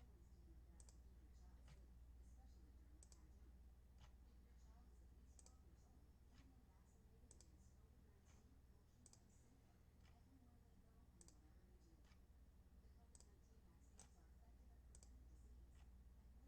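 Faint computer mouse clicks, about one a second, clicking the randomize button over and over to rerun a random.org list, over a low steady electrical hum in near silence.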